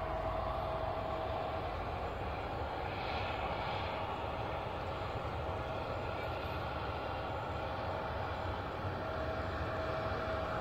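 Jet aircraft engines on the airfield: a steady roar carrying a constant high whine.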